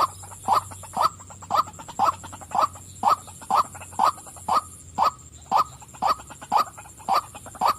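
Female white-breasted waterhen calling: a steady series of short, evenly spaced notes, about two a second.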